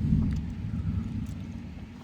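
Thunder: a low rumble that starts suddenly, peaks almost at once and slowly dies away.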